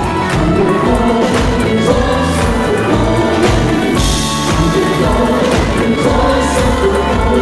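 Live worship band playing: drums keeping a steady beat, electric bass, guitars and keyboards, with group vocals. A cymbal crash about four seconds in.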